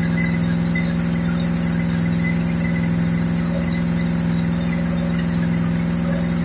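Freshly rebuilt Pontiac 350 V8 running at a steady, unchanging speed, with a steady high whine above the engine note.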